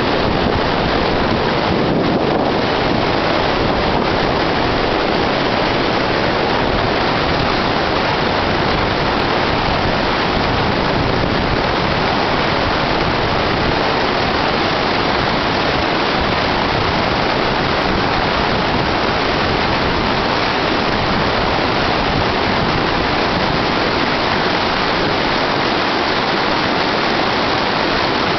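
Whitewater rapids of a small stream's falls rushing loudly and steadily close by, the stream running high with snowmelt.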